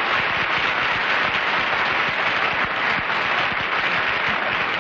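Studio audience applauding, a steady, dense clapping.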